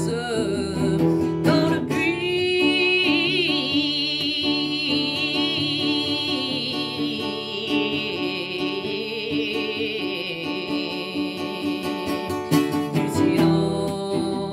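Song with acoustic guitar accompaniment and a long wordless sung note held with vibrato through most of the passage, without lyrics.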